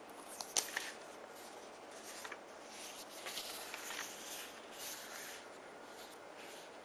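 Paper being handled and smoothed flat on a cork board: a couple of sharp crackles just under a second in, then a spell of rustling and crinkling as the sheet is turned over and pressed down.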